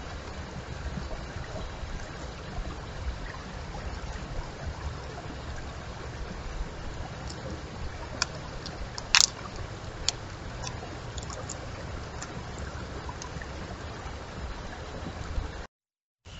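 Steady outdoor rushing noise, heaviest in the low end, with a few sharp clicks, the loudest about nine seconds in; it cuts off abruptly just before the end.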